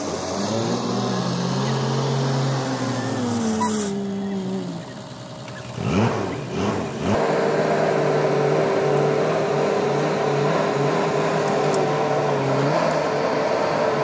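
Diesel tipper truck engine running, its pitch shifting as the truck drives off. After a short break about five seconds in, it settles to a steady, even speed while the hydraulic hoist raises the loaded bed to dump soil.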